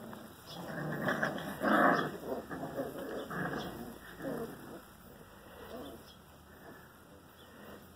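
Five-week-old Rottweiler puppies play-fighting, with a run of short puppy growls and yelps in the first half, loudest about two seconds in.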